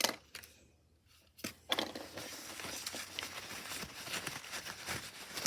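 Steady scratchy rubbing on the plastic case of a 1950s RCA transistor radio as it is scrubbed clean, starting about a second and a half in, after a short click.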